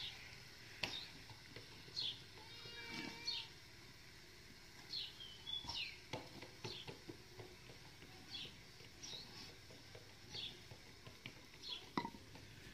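Faint outdoor ambience: small birds give short, high, falling chirps every second or so, with one longer animal call about two to three seconds in and a few light knocks.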